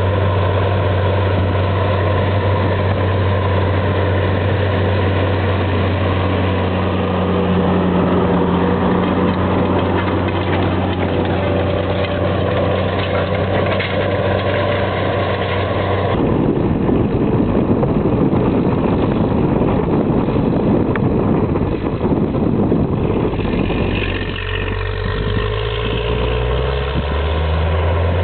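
Versatile four-wheel-drive tractor's diesel engine pulling a Väderstad TopDown cultivator-drill under load: a loud, steady low drone. About halfway through it gives way to a rough rushing noise for several seconds, and near the end the engine tone comes back rising in pitch.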